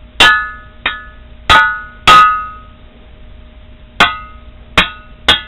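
Steel rod tapping a lawn mower engine's cylinder block: seven sharp strikes, each ringing out with several clear metallic tones that die away within about half a second, sounding like a cowbell. The clear ring is the sign of a sound casting with no hairline crack.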